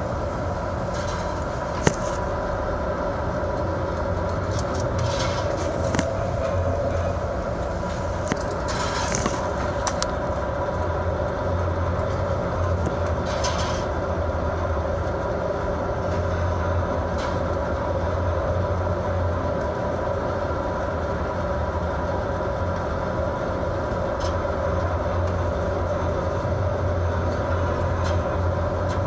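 Fishing boat's engines and machinery droning steadily with a held hum, heard on board in heavy seas. A sharp click about two seconds in and a few brief hisses of spray over the drone.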